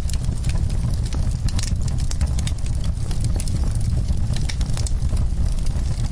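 Wood fire crackling in a fireplace: frequent sharp pops and snaps over a steady low rumble.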